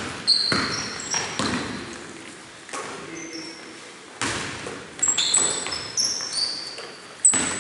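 Basketball shoes squeaking repeatedly on a wooden gym floor, with a basketball bouncing in a few sharp knocks, echoing in the hall.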